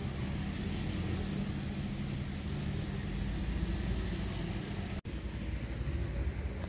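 Steady low rumbling background noise, with a momentary break about five seconds in.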